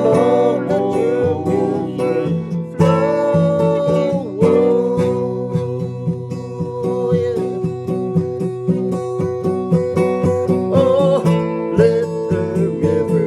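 Band music for a worship song, led by strummed acoustic guitar with a steady rhythm.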